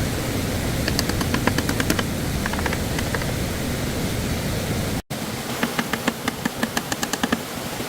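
Steady rush of stream water, with runs of quick, light clicks or taps over it. The sound cuts out for an instant about five seconds in.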